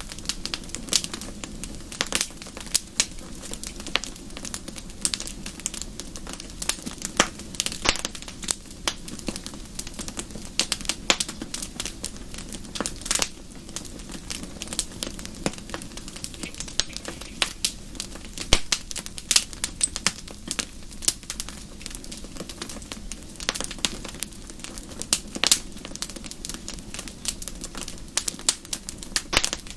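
Campfire crackling: burning wood snapping and popping in irregular sharp clicks, several a second, over a steady low background.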